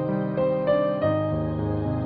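Slow instrumental background music with piano, its held notes changing every half second or so.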